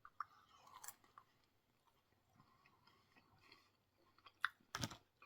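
Faint chewing of a mouthful of breaded fried chicken, with soft crunches and mouth clicks; the sharpest clicks come near the end.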